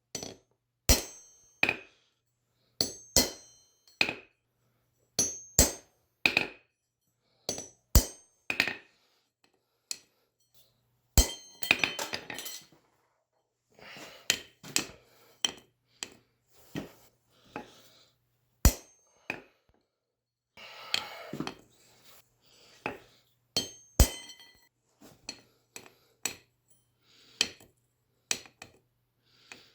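Hand hammer striking a steel punch on hot steel over the anvil: sharp ringing clinks, mostly about a second apart with short pauses, as pips are punched into dice faces forged on a railroad spike.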